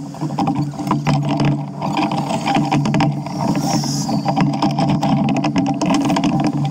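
Vehicle on the move: a steady low engine hum with frequent knocks and rattles from the road.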